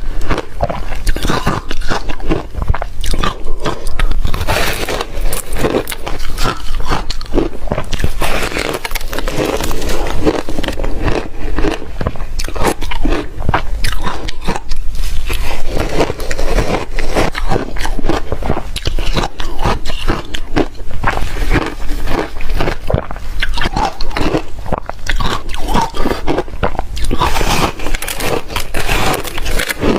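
Close-miked crunching and chewing of shaved refrigerator ice, with dense crackling bites one after another.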